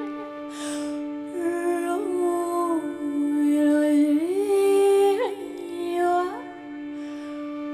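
A female voice sings long held notes that slide up into each new pitch, over a steady held tone underneath, in a contemporary chamber piece whose voice is processed live with pitch shifts, delays and loops. There is a brief breathy sound near the start.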